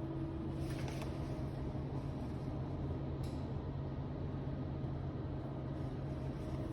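Steady low mechanical hum of running laundry-room appliances, with a faint click about a second in and another about three seconds in.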